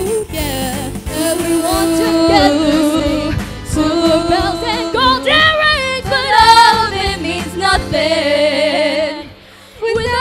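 Girls' voices singing a pop-style Christmas song through microphones, with long held notes that waver in vibrato over a steady low accompaniment. The sound drops away briefly about nine seconds in before the singing comes back.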